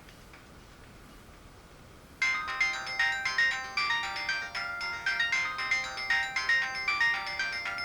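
Sony Ericsson Z200 mobile phone playing a polyphonic ringtone melody, several notes sounding at once. It starts suddenly about two seconds in, after faint hiss.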